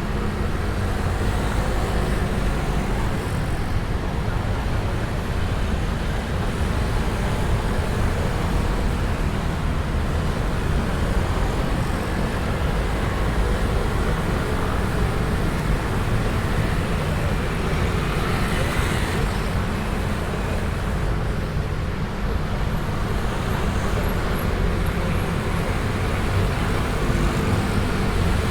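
Heavy road traffic dominated by a dense stream of motor scooters passing steadily, a continuous engine and tyre drone with no pauses.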